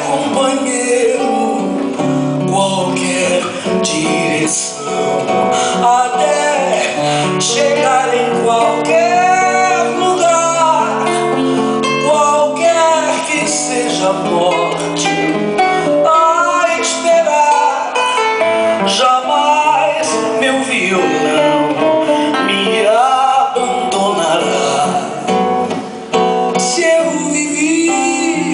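Live voice-and-guitar duo: a woman singing wordless scat lines into a microphone over acoustic guitar accompaniment.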